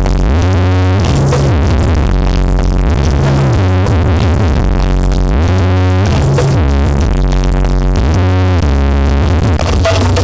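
Loud electronic dance music with a heavy bass line that changes note every second or two and swelling synth chords, played through a large carnival sound system.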